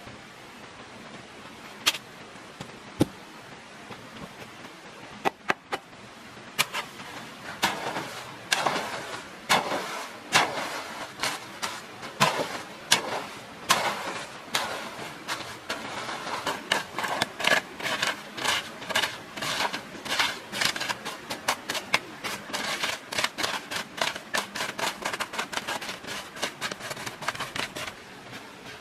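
A series of sharp knocks and scrapes, scattered at first and then coming several a second, in a brisk, uneven rhythm.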